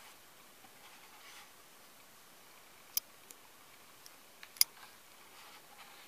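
Stiff page of a hardcover photo book being turned by hand: faint paper swishes and two sharp clicks, the second and louder one about a second and a half after the first, as the page flips over.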